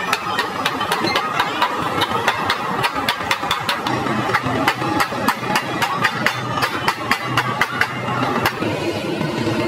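A small hammer tapping quickly and lightly on the brass top of a copper truck radiator core, several sharp taps a second, thinning out near the end. An engine runs steadily underneath.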